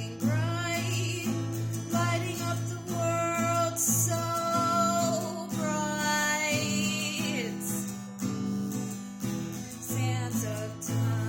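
Acoustic guitar strummed in a steady rhythm, with a voice singing long held, wavering notes over it.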